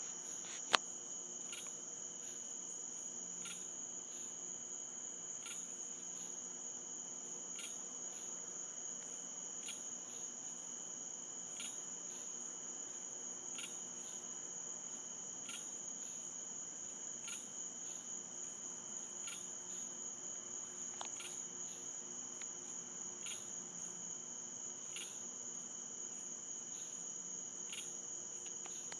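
Night insect chorus: a steady, high-pitched trill, with a short chirp or click repeating evenly about every two seconds. A single sharp click sounds about a second in.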